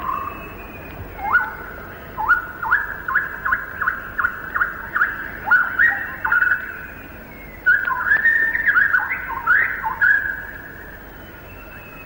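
Common shama (white-rumped shama) singing: quick runs of loud whistled notes, each sweeping upward, in two phrases with a short pause in the middle.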